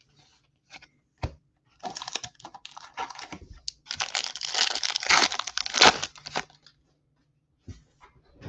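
Baseball trading cards being handled and shuffled by hand: a few light clicks, then a spell of papery crinkling and rustling that is loudest about four to six seconds in.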